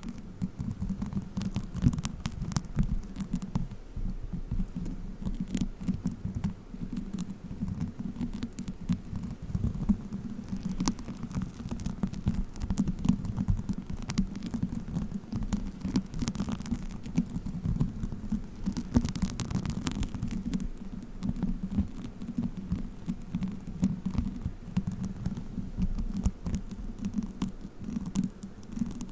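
Play foam squeezed and kneaded by fingers close to the microphone, giving a dense, continuous crackling and squishing.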